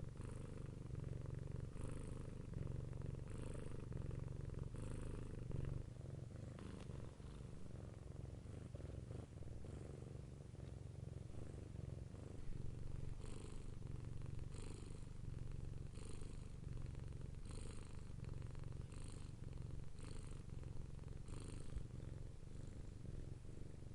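Domestic cat purring steadily, a low continuous rumble that swells with each breath in and out, about one breath every second and a half.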